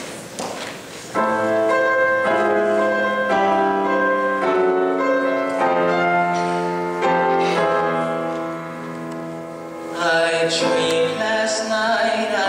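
Grand piano playing the song's introduction in sustained chords, starting about a second in. About ten seconds in, a young male soloist begins singing over the piano.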